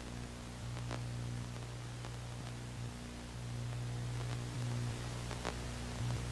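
A low, steady hum over a background hiss, with a few faint ticks.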